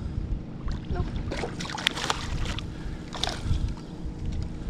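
Water splashing and lapping against a kayak's hull, with wind rumbling on the microphone. Brief splashes come about a second in, around two seconds and again just past three seconds.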